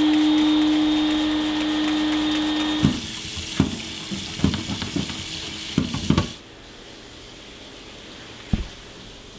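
A steady hum for about the first three seconds. Then a tap runs into a kitchen sink while a glass fridge shelf is scrubbed, with a quick run of knocks and clatters. A little after six seconds it drops to a faint hiss, with one more knock near the end.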